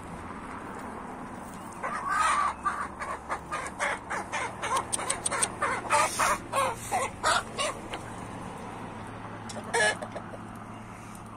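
Chickens clucking: a run of short clucks from about two seconds in until nearly eight seconds, then one more cluck near the end, over a faint steady low hum.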